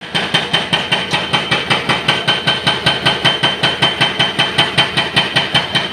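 Excavator-mounted hydraulic breaker hammering concrete pavement in a fast, even series of sharp metallic blows, about five a second, with a ringing tone and the excavator's diesel engine running underneath. The hammering stops right at the end.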